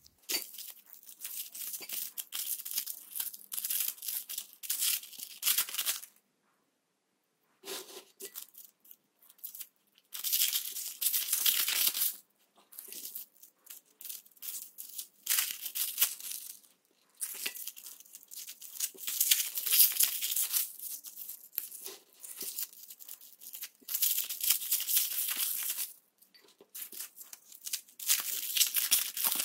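Cellophane and foil wrappers crinkling and tearing as umbrella-shaped chocolates are unwrapped by hand, in bursts of a few seconds with short pauses between.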